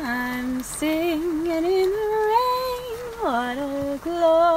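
A woman singing a slow melody in long held notes with vibrato, with no clear words, sliding down sharply on one note about three seconds in.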